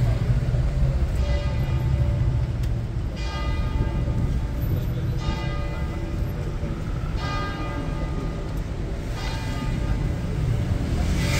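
A church bell tolling slowly: five strokes about two seconds apart, each ringing on and fading. Underneath is a steady low rumble of city traffic.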